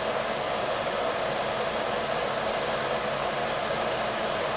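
Steady whooshing hum of a running fan, even in pitch and level.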